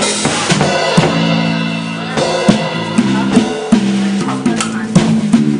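Band music: a drum kit keeps a steady beat under a bass line of short repeated low notes that change pitch every half second or so.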